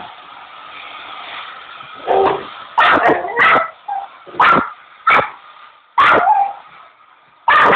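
A dog barking at a hair dryer: a string of about seven sharp, loud barks starting about two seconds in, coming every half-second to a second, with a short pause before a last bark near the end.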